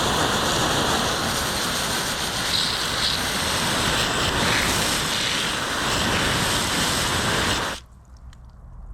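Wind rushing over an action camera's microphone with tyre and trail noise from a mountain bike ride; the noise is steady and cuts off suddenly near the end.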